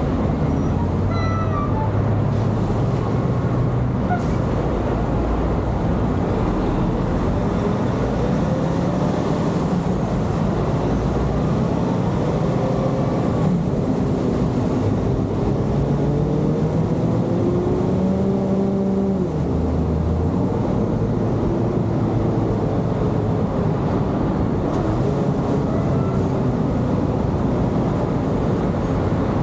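Road traffic: a steady rush of engine and tyre noise, with engines rising and falling in pitch as vehicles speed up and slow down, most clearly in the middle stretch.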